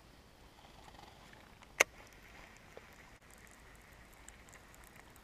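Faint outdoor background with one sharp click about two seconds in.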